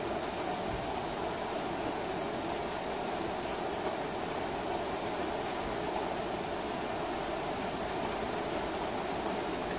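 Steady heavy rain: an even, unbroken hiss of falling rain with no thunder in this stretch.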